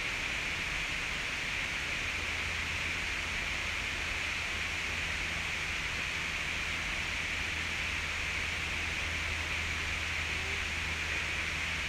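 Steady hiss of background noise with a low hum beneath it, unchanging, with no distinct events.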